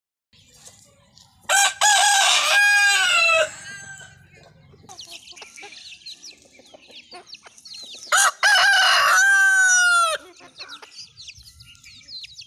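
Rooster crowing twice, each crow about two seconds long and falling in pitch at the end, with softer chicken calls between the crows.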